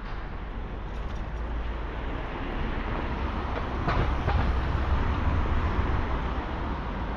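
Street traffic with a vehicle passing close by; its low engine and tyre rumble swells about halfway through, then eases off.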